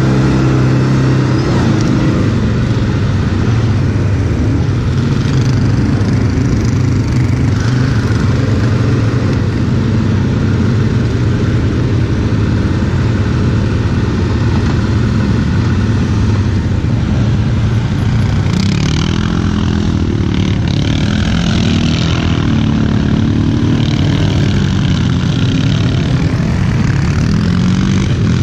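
Quad (ATV) engine running under way off-road, its engine speed rising and falling, most clearly in the second half.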